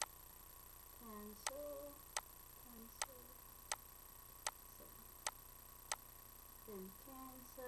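Steady, evenly spaced ticking, about four ticks every three seconds. A woman's voice makes a few faint short hums in between.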